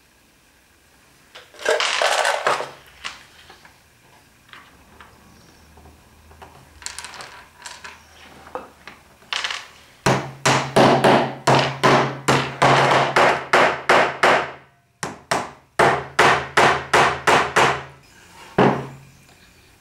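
Wooden mallet tapping wooden dowels into glued holes in chestnut boards: a quick run of sharp blows, about three a second, with a short pause partway through and one last tap near the end. A short clatter comes about two seconds in.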